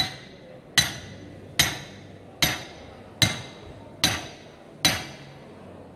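Hammer blows driving a steel spike into a truck tyre's tread: seven evenly spaced, sharp metallic strikes a little under a second apart, each ringing briefly.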